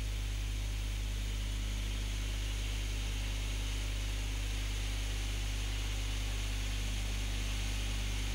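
Steady low electrical hum with an even hiss over it and nothing else, the noise floor of an old video recording.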